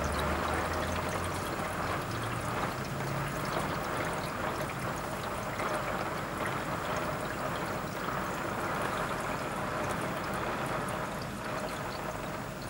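Heavy rain falling steadily, a dense even hiss of drops splashing onto a waterlogged street and garden. A faint low hum fades out in the first second or two.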